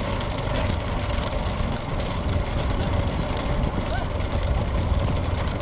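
A vehicle engine idling steadily under the open-air murmur of a crowd.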